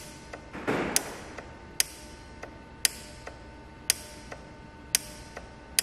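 N80 evap purge regulator valve on a VW 2.5-litre engine clicking sharply about once a second, with fainter ticks in between, as a scan-tool output test actuates it. The clicking shows the valve is working electrically.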